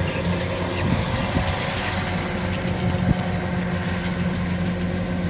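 Kubota DC105X combine harvester's diesel engine running steadily, with a few brief sharp knocks about a second in and near three seconds.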